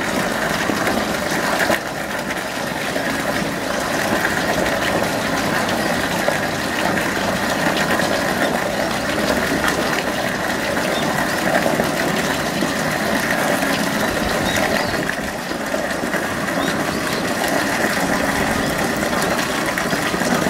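Steady rush of running water into the polar bear pool, an even unbroken noise that dips slightly about two seconds in.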